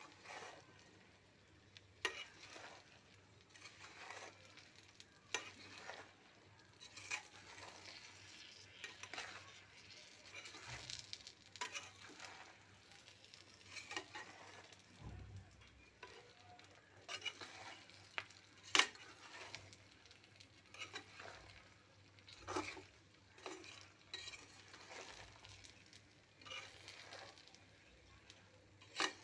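Whole red chilies and garlic cloves sizzling in oil in a pan while being stirred, with a short scrape or knock of the stirring every second or two.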